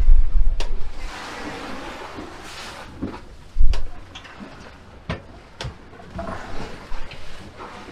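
Wind buffeting the microphone over the rush of rough sea around a sailboat, with several sharp knocks from the boat.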